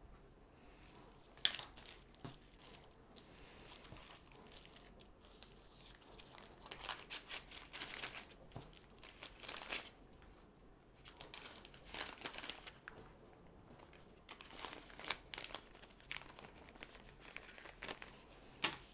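Thin plastic bags crinkling as they are handled and opened, in irregular bursts, with a sharp click about a second and a half in.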